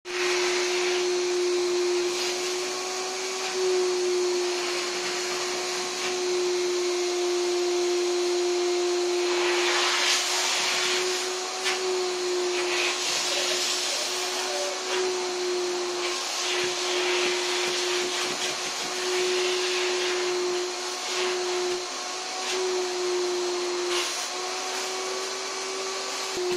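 Canister vacuum cleaner running with a steady motor whine while its hose nozzle is worked over fabric sofa upholstery. The suction hiss swells and eases as the nozzle moves across the cushions.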